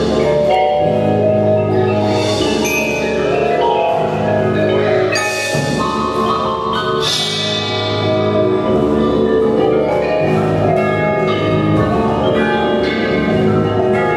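Indoor drumline's front ensemble playing a slow passage on marimbas and other mallet keyboards, with sustained low notes and chime-like tones under it. A bright crash rings out about seven seconds in.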